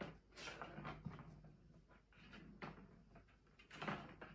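Plastic ball-track cat toy rattling and knocking on a wooden floor as kittens bat and climb on it, in irregular bursts with the loudest clatter near the end.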